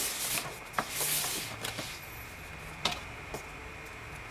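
Cardboard laptop box being handled and turned on a wooden tabletop: rubbing and rustling, with a few light knocks as it is set down and tapped.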